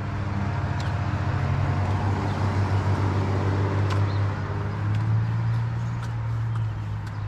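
A motor vehicle's engine running with a low, steady hum that wavers slightly in pitch.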